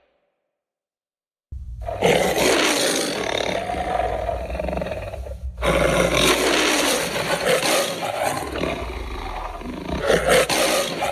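Made-up Giganotosaurus roar sound effect, mixed from big-cat and movie-monster roars. After about a second and a half of silence, a low rumble starts, followed by two long roars with a short break between them. The second roar runs on past the end.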